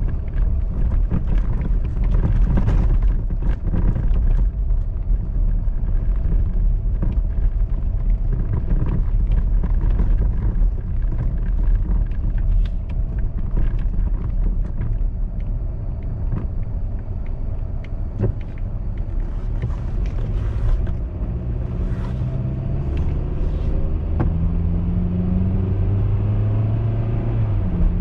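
A car driving on snowy, slushy streets, heard from inside the cabin: a steady low rumble of tyres and engine with scattered knocks, and the engine pitch rising for a few seconds near the end as it picks up speed.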